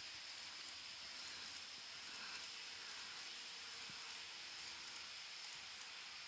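KATO N-scale model of the 381 series 'Yuttari Yakumo' express running by on its track: a faint, steady hiss of wheels and motor, with a few light clicks.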